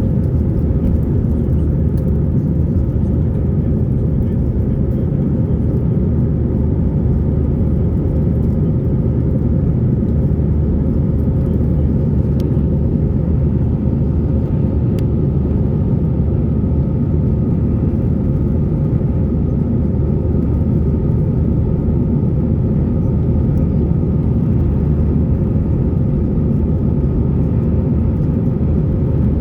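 Steady low rumble of an Airbus A320's engines and airflow heard inside the passenger cabin, unchanging throughout, with a faint steady hum above it.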